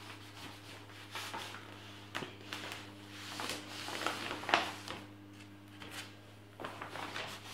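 A cloth rubbing over a vinyl wall sticker and the large plastic sheet rustling and crackling as it is lifted and peeled back, in irregular strokes, with the sharpest crackle about four and a half seconds in.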